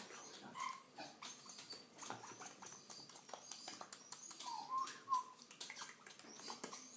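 African grey parrot during its courtship display, making a run of soft clicks and a few short squeaky chirps, the loudest about five seconds in.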